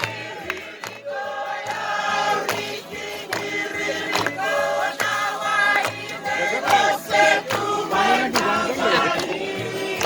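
A group of voices singing a song together in harmony over a steady beat of about three pulses a second.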